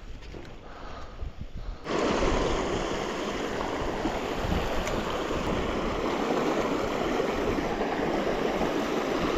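Creek water rushing close to the microphone. It starts abruptly about two seconds in and holds as a loud, steady rush. Before it there are a few quieter knocks of the camera being handled.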